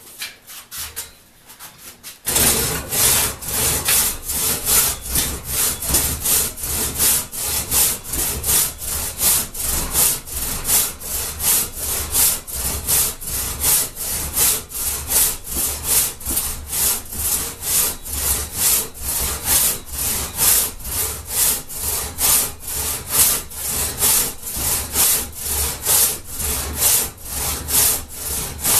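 One-man crosscut saw, freshly sharpened and set, cutting through a clamped log of dry mulberry. Steady back-and-forth rasping strokes, about two a second, begin about two seconds in; the saw cuts on both the push and the pull.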